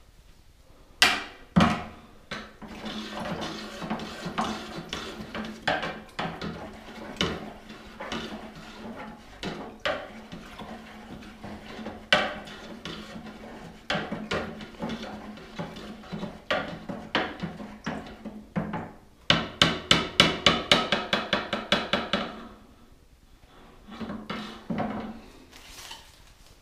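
Wooden stirring stick knocking and scraping inside a jar of liquid while being stirred, with scattered sharp knocks. Partway through, a fast even run of taps, about eight a second, lasts a few seconds.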